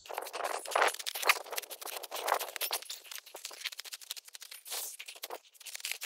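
Scattered rustling and light crackling of handling and moving about while rigging a hammock and its tarp.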